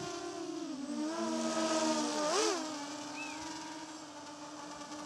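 Lumenier QAV-R racing quadcopter's motors and 5-inch propellers whining, the pitch shifting with throttle, with a quick rise and fall about halfway through, then holding a steady whine as the quad sits on the grass. The pilot hears a droning in it that he suspects comes from crash-worn, unbalanced propellers.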